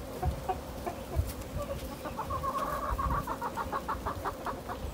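Chickens clucking, with a quick run of about five or six clucks a second through the second half.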